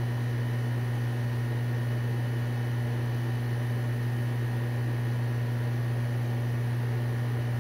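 Steady low hum over an even hiss.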